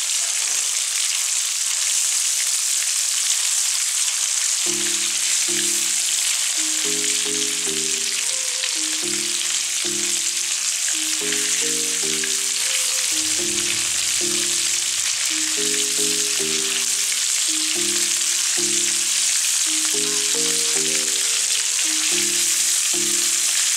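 Beef meatballs sizzling steadily as they fry in hot oil in a wok. Soft background music of low notes comes in about five seconds in.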